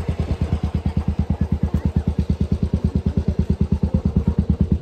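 Steady low mechanical throbbing, about twelve even beats a second, growing slightly louder near the end.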